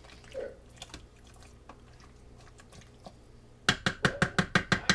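Faint drips and small clicks, then about three and a half seconds in a rapid run of sharp taps on cookware begins, about seven strikes a second.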